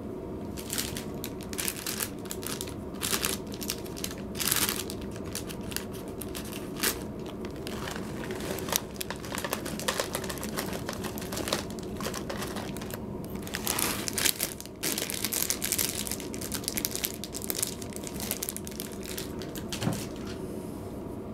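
Clear plastic bag of dry cat food crinkling in irregular bursts as it is handled and tipped over a cat's bowl, over a steady low hum.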